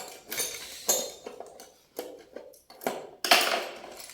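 Metal tools and hardware clinking and rattling as they are handled, in several irregular clatters, the loudest a little over three seconds in.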